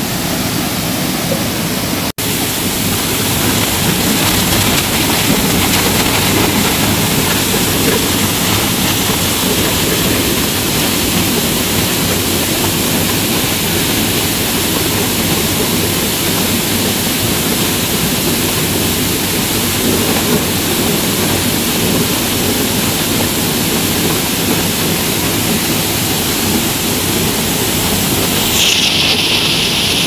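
Steady roar of a large waterfall, a dense rushing-water noise without a break. It drops out for an instant about two seconds in.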